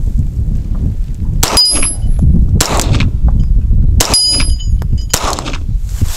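Two shots from a Ruger Mark IV 22/45 .22 LR pistol, about two and a half seconds apart, each followed at once by the ringing clang of the steel target being hit.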